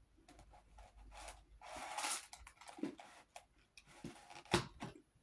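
Faint handling noises: soft scattered rustles and clicks, with a longer rustle about two seconds in and a sharper click near the end.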